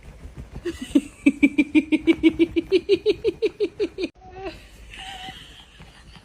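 A run of rapid laughter, about six short pulses a second for roughly three seconds, rising slightly in pitch before it breaks off. A few faint short squeaks follow.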